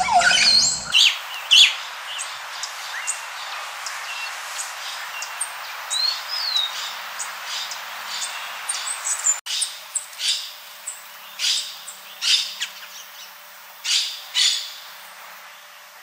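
Songbirds calling: short, sharp, high chip notes and twitters at irregular intervals, including one brief rising-and-falling whistle. In the second half a run of loud single chips comes roughly once a second.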